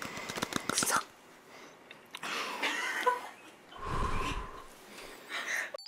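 A person's muffled, breathy outbursts close to a microphone, with a second of quick crackling clicks at the start.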